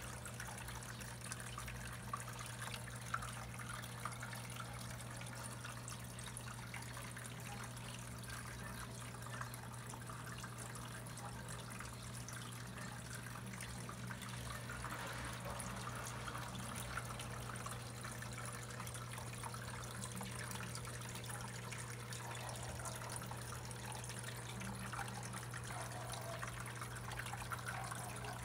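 Water trickling steadily over a constant low hum.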